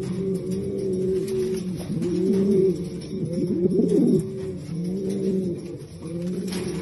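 Jiennense pouter pigeons cooing: deep, rolling coos in repeated phrases about once a second, with some phrases overlapping. These are the bow-coos of a male displaying to another bird.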